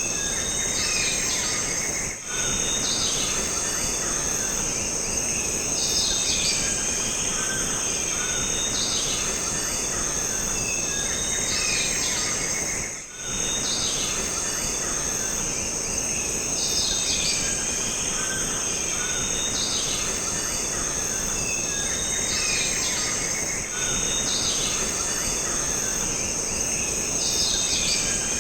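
Jungle ambience: a steady high-pitched insect drone with birds calling and chirping over it again and again, above a constant background hiss. The sound dips out briefly about two seconds in, near the middle, and again near the end.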